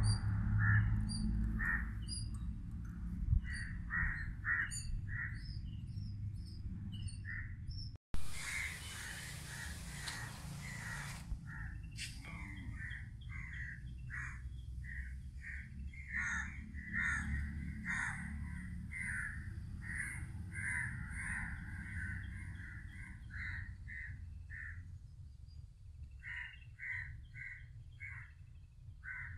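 Crows cawing over and over, several birds calling across one another in short harsh calls, over a low steady rumble. A rush of hissing noise about eight seconds in lasts some three seconds.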